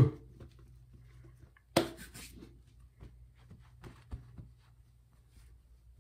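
Cloth towels being handled and rustling, with a short louder burst of noise about two seconds in and light rustles and small knocks after it, over a steady low hum.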